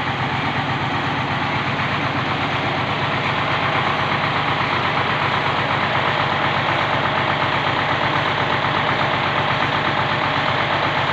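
Band sawmill's engine running steadily at idle, with an even, fast pulsing throb.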